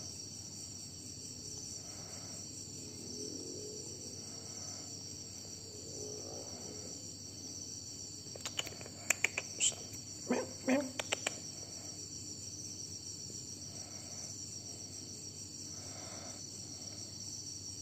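A steady, high-pitched chorus of crickets or similar insects chirping. About halfway through, a brief cluster of sharp clicks and short chirps stands out above it.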